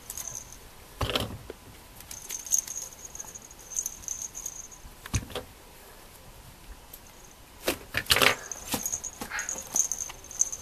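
A puppy playing with toys on a blanket while a hand pushes a toy ball about: scattered knocks and rustles, one about a second in, one about five seconds in and a quick cluster around eight seconds, with a faint high jingle coming and going.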